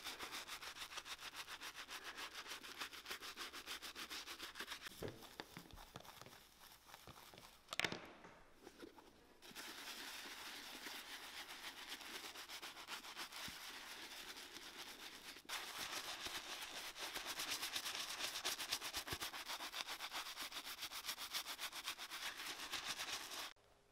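Stiff-bristled wooden-handled brush scrubbing saddle soap lather into a leather boot upper, in quick back-and-forth strokes. The scrubbing stops for a few seconds around a single knock, then resumes and is louder in the later part.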